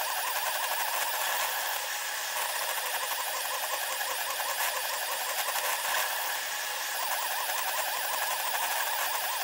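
SeeMeCNC Orion delta 3D printer running a print, its motors heard sped up tenfold as a steady high, fast-warbling whir with nothing below a fairly high pitch.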